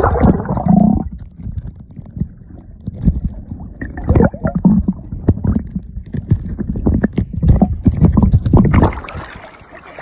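Muffled underwater rumbling and thudding of water moving around a submerged phone's microphone, in uneven surges near the start, around four seconds in and again toward the end.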